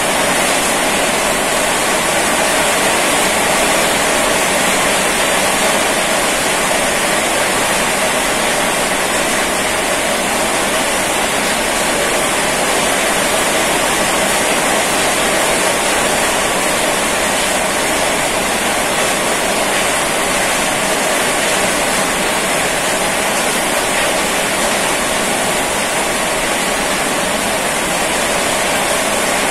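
Heavy rain falling steadily, a dense, unbroken hiss of water.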